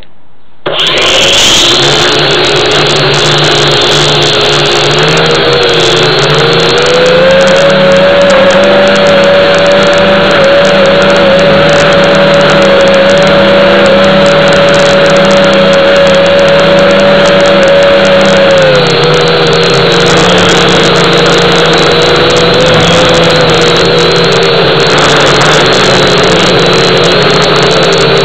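Quadrone X HD toy quadcopter's motors and propellers whirring, loud and close to the onboard camera's microphone. It spins up under a second in, the pitch rises about a quarter of the way through, and it falls back about two-thirds of the way through.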